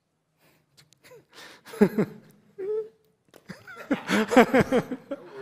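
Indistinct human voice, unclear speech or laugh-like vocal sounds, coming in about two seconds in after a short quiet.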